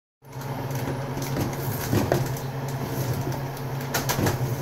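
Wooden spoon stirring and pressing stiff ugali (cornmeal cooked in salted water) in a metal pot, with soft scrapes and knocks against the pot, louder about two seconds in and again near the end, over a steady low hum.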